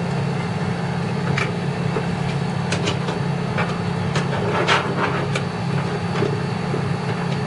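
Scattered light clicks and knocks as the power supply's connectors are unplugged from a desktop PC's motherboard, over a steady low hum.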